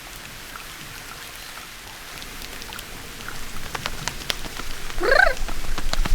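Rain sound effect: a steady hiss with pattering drops that grow denser and louder over the last few seconds. About five seconds in, a short call rises and falls in pitch over the rain.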